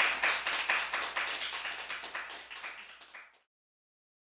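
Applause with the separate hand claps distinct, growing fainter and then cutting off abruptly a little over three seconds in.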